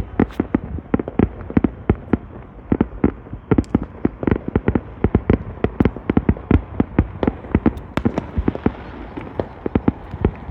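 Aerial fireworks shells bursting in a rapid, continuous barrage, several loud bangs a second.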